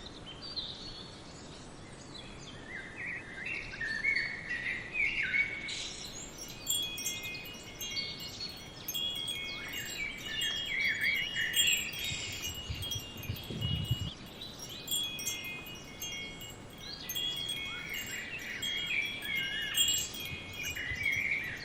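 Birds chirp, and from about six seconds in wind chimes ring in clusters of overlapping high, steady tones. A brief low rumble comes about midway.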